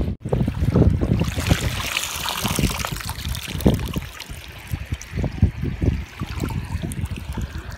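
River water sloshing and splashing around people wading through it, with irregular gusts of wind buffeting the microphone.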